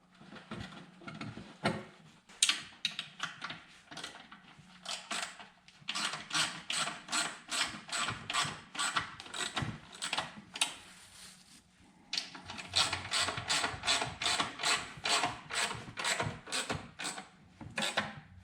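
Hand socket ratchet clicking as it is worked back and forth, in runs of about four clicks a second with a short pause about halfway through, as fasteners are turned during engine reassembly.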